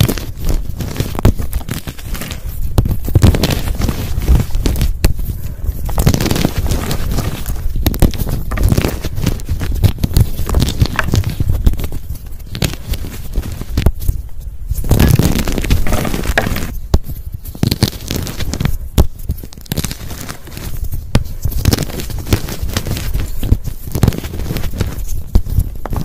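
Hands squeezing and crushing blocks of dyed gym chalk, a dense run of crunching and crackling as the blocks break into crumbs and powder.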